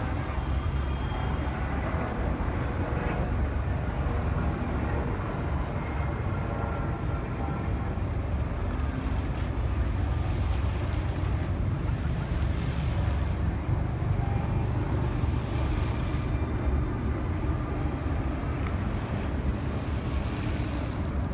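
Wind buffeting the microphone over a steady outdoor rumble, with hissing stretches of a second or two from the Bellagio fountain's water jets spraying.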